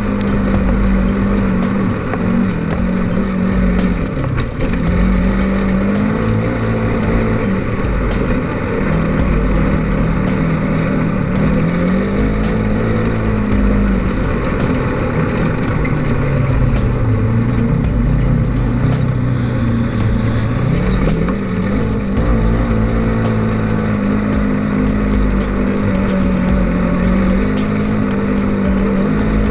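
Polaris RZR 900 side-by-side's parallel-twin engine running under way, its revs rising and falling over and over, with scattered light knocks and rattles.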